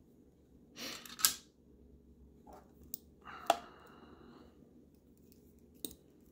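Small metal tool-handling sounds from a precision screwdriver and its driver bits working against a Polaroid SX-70's metal base plate. A scrape ends in a sharp click about a second in, a scrape with a faint ringing tone carries a second sharp click about three and a half seconds in, and a lighter tick comes near the end.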